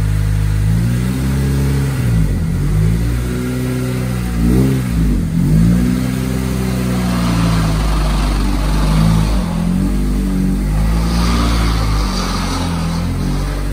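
Honda Civic EK hatchback's four-cylinder engine running while parked and being revved, its pitch rising and falling several times as the throttle is blipped.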